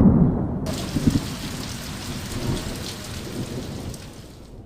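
A roll of thunder rumbling and fading away, with steady rain hiss starting suddenly about half a second in.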